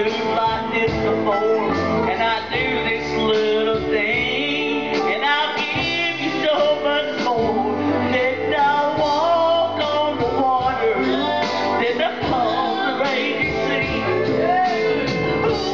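Live gospel band music: acoustic guitar and drums with a voice singing, running steadily.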